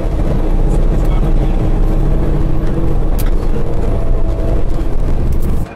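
Steady low rumble of a moving bus heard from inside the cabin, engine and road noise together; it drops away sharply near the end.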